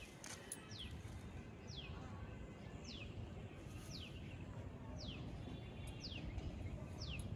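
A bird repeating a short, falling whistled note about once a second, over a faint steady low background hiss.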